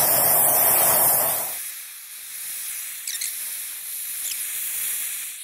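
Superheated steam, so hot it is nearly dry, hissing loudly as it jets from the end of a pipe coil heated in a wood fire. About a second and a half in, the hiss drops sharply to a much fainter high hiss.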